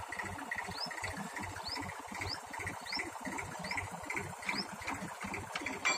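A small machine running steadily, with a short rising squeak about every half second over a faster ticking of roughly three beats a second.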